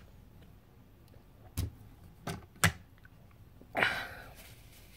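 A few sharp knocks as a water tumbler with a straw lid is handled and set down, then a breathy exhale after the drink.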